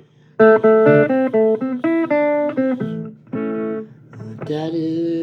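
Blues guitar playing: a strummed chord, then a run of single picked notes and chords, with short pauses between phrases.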